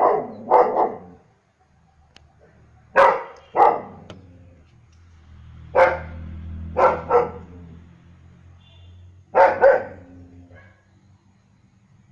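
German shepherd dog barking in short groups of one or two loud barks, about every three seconds, roughly nine barks in all.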